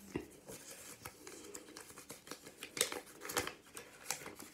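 Scattered small clicks, taps and rustles as a package's contents are handled and unwrapped, with a few sharper clicks about three seconds in.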